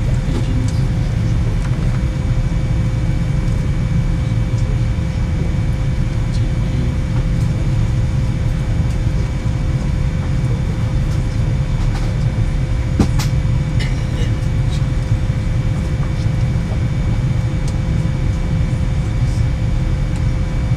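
Boeing 787-9 cabin noise heard from a window seat over the wing: a steady low rumble with a few steady whining tones from the idling engines and air systems as the airliner is pushed back.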